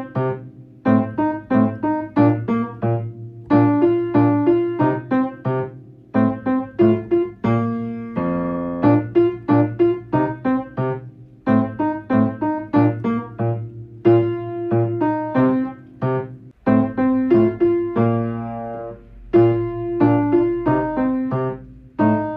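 Solo piano playing a bouncy, rhythmic accompaniment in repeated short phrases, with a rumbling low chord about eight seconds in and a run of notes around the seventeen-second mark.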